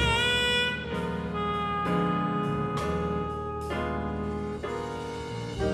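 Live jazz band playing: a saxophone holds a slightly wavering note over piano chords that change about once a second.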